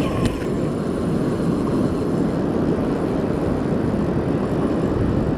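A steady low rushing noise of wind and surf on the microphone, with a couple of faint clicks near the start.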